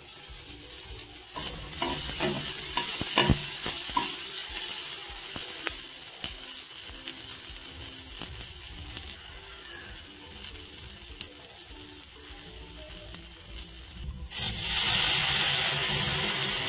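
Tomato masala sizzling as it fries in oil in a pan, with a spoon knocking and scraping against the pan several times in the first few seconds. About fourteen seconds in the sizzle suddenly grows louder as boiled toor dal is poured into the hot pan. Faint background music underneath.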